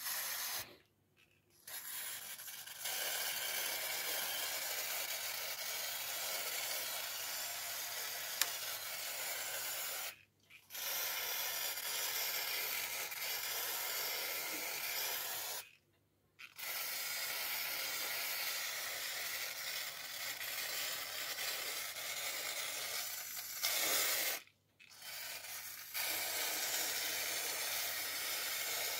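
Aerosol can of paint stripper spraying: long, steady hisses several seconds each, broken by short pauses about 1, 10, 16 and 24 seconds in.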